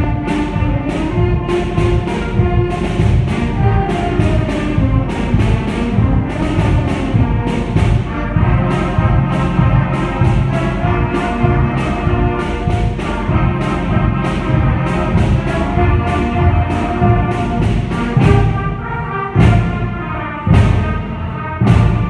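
Student concert band playing a march: clarinets, flutes, saxophones and brass carrying the tune over a steady percussion beat, with a few loud accented hits near the end.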